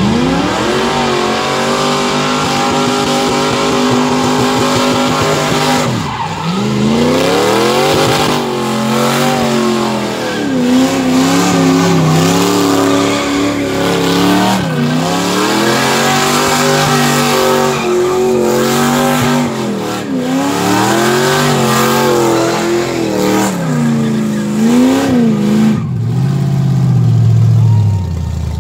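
Third-generation Chevrolet Camaro's engine revved hard through a burnout, its rear tires spinning and screeching on the pavement. The revs climb at the start and hold high for several seconds, then rise and dip again and again before dropping back toward idle near the end.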